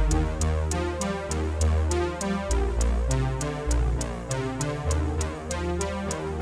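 Electronic background music with a steady drum-machine beat, ticking several times a second over a changing synth bass line.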